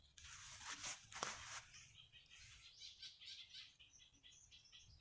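Very quiet outdoor ambience. Faint rustling and a light tap about a second in as pieces of cut banana corm are handled and set down, then faint bird chirps.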